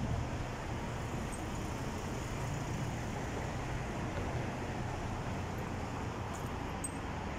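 Steady road traffic noise from cars passing on a town street, mostly a low rumble.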